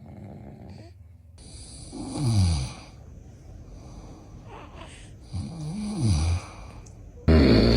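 A man snoring loudly: two long snores about three seconds apart, each sliding down in pitch, with another loud snore starting near the end.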